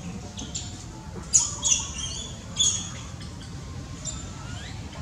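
Young long-tailed macaques giving short, high-pitched squealing calls, a quick run of them about a second in and another shortly after, over a steady low background rumble.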